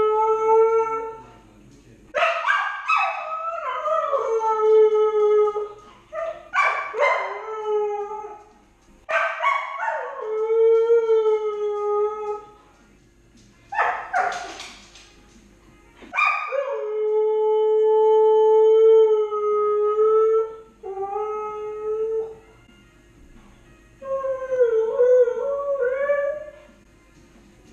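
Young Siberian husky howling, about seven drawn-out howls with quiet gaps between, each starting sharply and sliding down in pitch, the last one wavering. This is separation howling from a dog left home alone.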